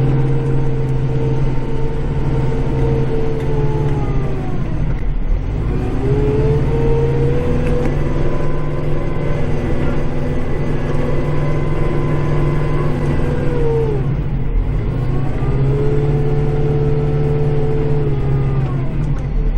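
Kubota tractor's diesel engine running steadily, heard from inside the cab, with a whine over it that falls away, rises again about six seconds in, holds, then falls and rises again near the end as the machine works back and forth.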